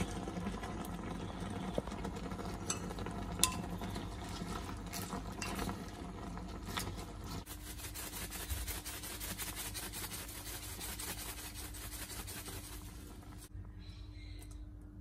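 Frog pieces simmering in a thick dark sauce in a clay pot, bubbling and sizzling, with a couple of sharp clicks in the first few seconds. A low steady hum joins about halfway, and the sizzling drops away shortly before the end.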